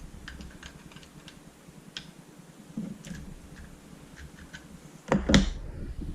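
Small parts of a paintball marker being handled and unscrewed: scattered faint clicks, then a louder knock about five seconds in.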